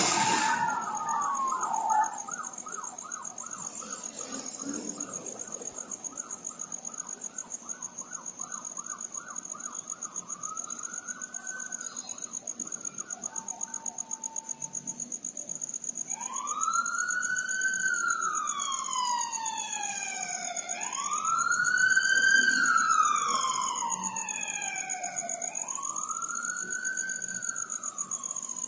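Police sirens in the street. It opens with a brief loud burst of noise, then a fast pulsing yelp for several seconds. From a little past halfway a wailing siren rises and falls in long slow sweeps, loudest a few seconds before the end. A steady high-pitched tone runs underneath throughout.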